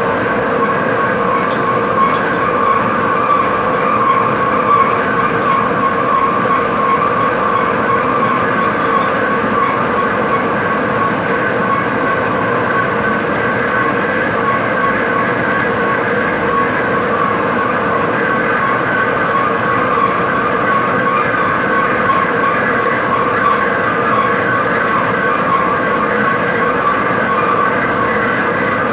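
Metalworking machine tool running steadily, a continuous mechanical din with several held tones and no pauses.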